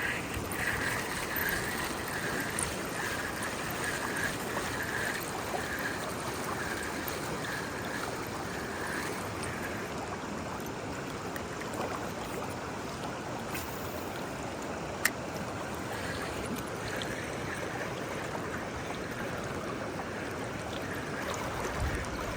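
Steady rush of river water running over a rocky shoal. A faint, evenly repeating high pulse comes about one and a half times a second for the first nine seconds or so, and there is a single sharp click about fifteen seconds in.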